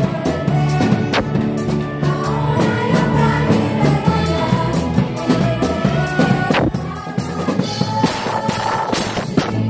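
Upbeat Christian children's song with a drum beat and singing, played loud through a PA loudspeaker.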